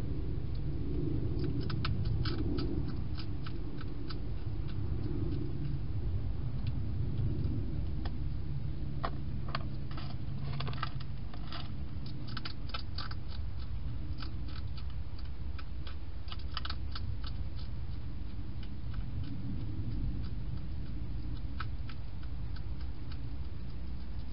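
Wild hedgehog crunching dry food: bursts of quick, sharp clicks that come in clusters, thickest in the first half and sparser near the end, over a steady low rumble.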